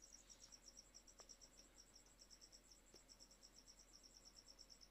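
Faint insect chirping, cricket-like: a fast, even run of high-pitched chirps, about nine a second, over near silence.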